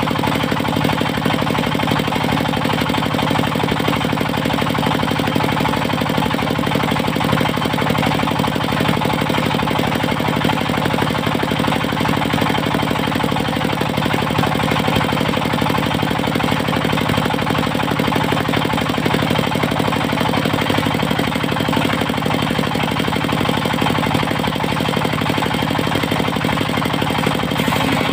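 Diesel engine of a portable circular sawmill running steadily at an even speed, with no change in load.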